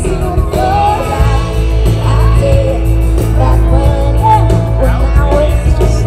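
Live band playing amplified rock music: a sung lead vocal over electric guitars, bass guitar and drums, with a heavy bass.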